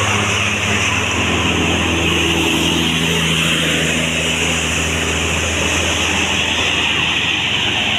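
A bus engine running steadily under an even rush of road noise, its pitch shifting slightly about three seconds in.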